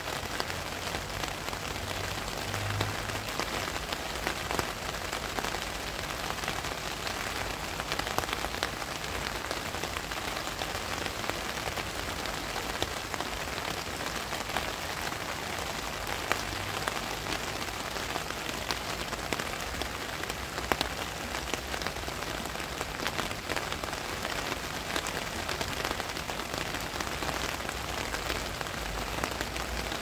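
Steady rain falling, with many separate drops heard striking surfaces.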